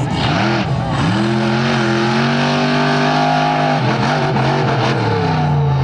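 Monster truck engine revving: a couple of quick blips, then held at high revs for nearly three seconds before dropping off and building again near the end.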